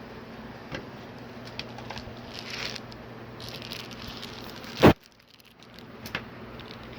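Hands handling the parts of a TV opened for backlight repair: light clicks and two stretches of rustling and scraping, then one sharp loud knock a little under five seconds in, over a steady low hum.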